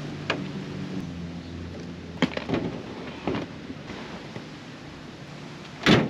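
Several light knocks and clunks, then one loud thump near the end, from a man working on a pickup's Go Fast Camper shell, its pop-top lowered and its rear hatch swung open. A steady rush of wind runs underneath.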